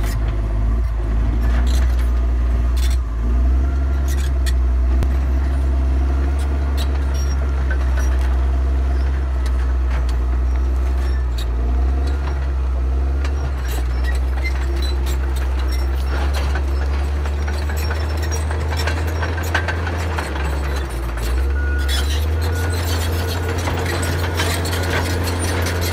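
Komatsu D61 crawler bulldozer's diesel engine running steadily under load as it pushes soil, with scattered clanks and rattles. The low engine note shifts briefly about twenty seconds in.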